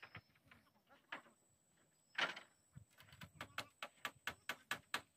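Hammer nailing boards on a wooden hut frame: a few scattered knocks and one louder knock, then from about halfway a steady run of quick strikes, about four a second.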